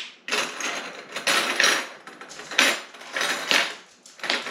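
Kitchen utensils clinking and scraping against dishes: a string of irregular rattles, about half a dozen, while a measuring spoon and ingredients are being handled.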